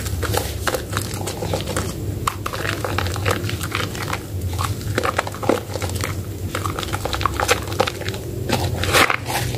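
Soaked Medicare White soap bar being squeezed and kneaded in the hand in a basin of lather: wet squelching and many irregular crackles of foam. A steady low hum runs underneath.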